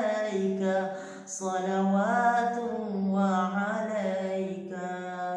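A young male voice singing an Arabic naat unaccompanied, in long drawn-out notes. There are two sustained phrases with a short breath about a second in.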